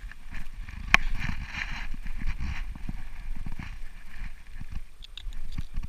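A nylon dog harness being handled and its plastic back buckle worked on a dog: irregular scuffing, rustling and knocking, with one sharp click about a second in.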